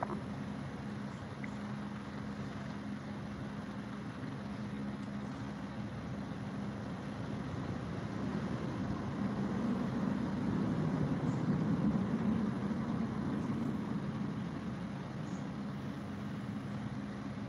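Low engine rumble from a motor vehicle, steady with a faint hum, swelling louder for a few seconds near the middle and then easing back.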